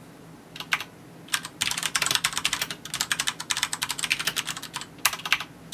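Xenics Tesoro M7 LED SE mechanical keyboard with Brown switches being typed on: rapid runs of key clicks in bursts, broken by short pauses.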